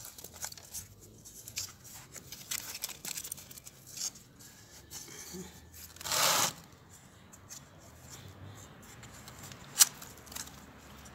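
Hands handling a seedling in its soil-filled plastic pot: irregular rustling and crackling, with a louder brushing rustle about six seconds in and a sharp click near the end.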